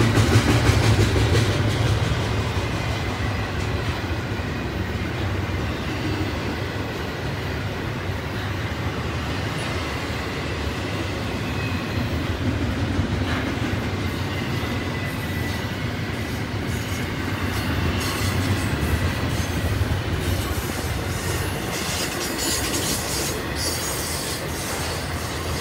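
Double-stack intermodal freight cars rolling past: a steady rumble of steel wheels on rail, with a faint high wheel squeal through the middle and some sharp clicks near the end.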